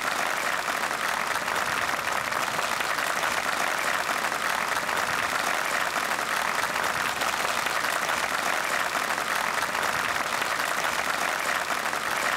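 A large crowd applauding, a dense, steady clapping that holds at an even level throughout.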